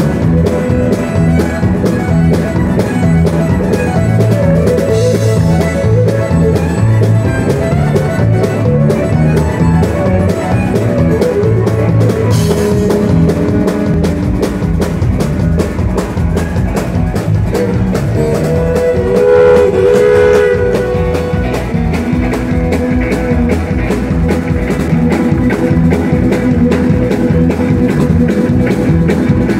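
Live country band playing an instrumental passage, with a fiddle taking the lead over electric bass and a steady drum beat.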